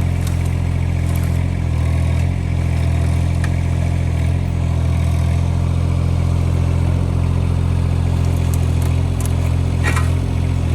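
Yanmar 3TNV74F three-cylinder diesel of a mini excavator running at a steady speed, with a short sharp noise near the end.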